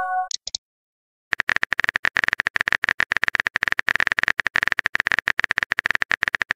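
Phone keyboard typing sound effect: a rapid run of clicks, one per letter, starting about a second and a half in. At the very start, the tail of a short chiming message-sent tone.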